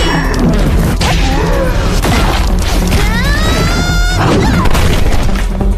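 Animated battle sound effects over background music: a dense run of crashes and booms, with a rising high-pitched sound about three seconds in that lasts about a second.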